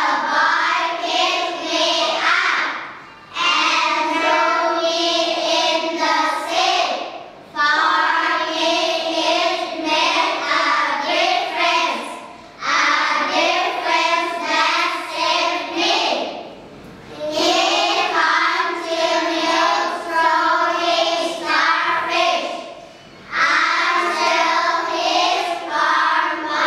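Children's choir singing a song together, line by line, with a short break for breath after each phrase.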